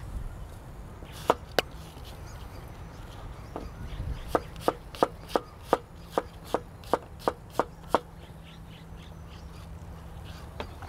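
Kitchen knife chopping Asian pear and apple on a cutting board: two cuts about a second in, then a steady run of about eleven chops, roughly three a second, stopping about eight seconds in.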